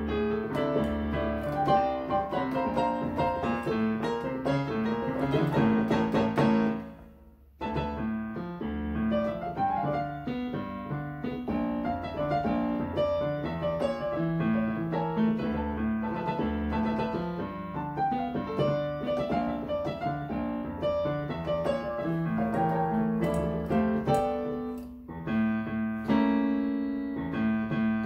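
Digital piano played solo: a salsa piano arrangement with busy chords in both hands. The playing stops for an instant about seven seconds in and dips briefly again near the end.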